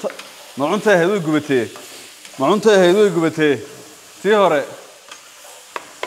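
Onions and vegetables sizzling in a frying pan on a gas burner while a spatula stirs and scrapes them. Three times a louder pitched sound wavers up and down over the sizzle, in short bursts like a voice humming.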